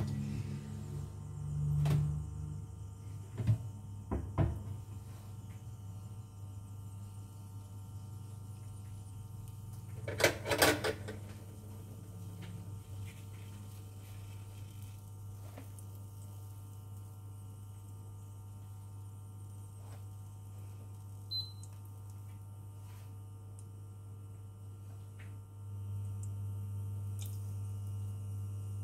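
Steady electrical hum of a glass-top electric hob heating a pan of oil. A few knocks sound in the first few seconds and a brief rattling clatter about ten seconds in, and the hum grows louder a few seconds before the end.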